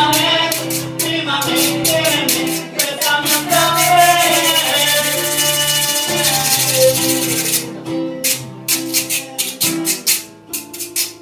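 Live acoustic performance: a man sings while strumming a nylon-string classical guitar in a quick, steady rhythm. The sung line drops out in the second half while the strumming carries on.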